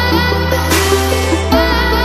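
Background electronic music with a deep held bass and short repeating melody notes; the bass moves to a new note about one and a half seconds in.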